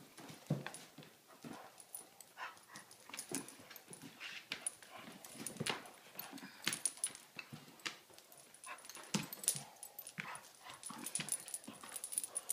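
Two dogs tugging a plush toy between them: short, irregular noises of rough play scattered throughout.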